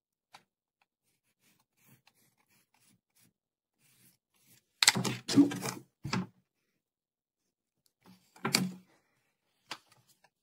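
Acrylic quilting ruler being slid and repositioned over flannel and a plastic cutting mat: a cluster of rustling scrapes about five seconds in, a shorter one about three seconds later, and a light tap near the end.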